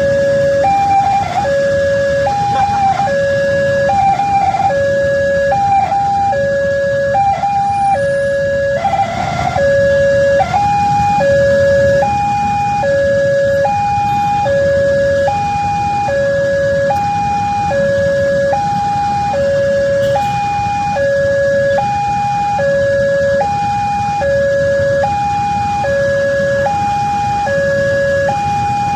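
Railway level-crossing warning siren of the 'sirine langkah' type sounding its two-tone pattern: a lower and a higher tone alternate about once a second, over a low steady rumble.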